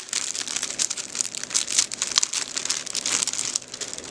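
A thin clear plastic bag crinkling continuously as it is handled, with irregular crackles throughout that stop at the end.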